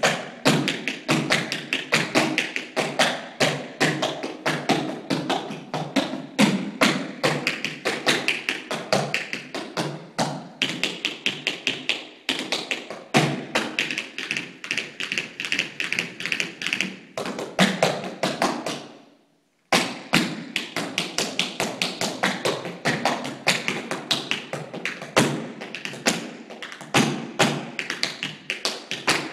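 Tap shoes striking a wooden dance floor in fast, continuous rhythmic runs of sharp taps and heavier stamps. The sound cuts out briefly about two-thirds of the way through, then the tapping resumes.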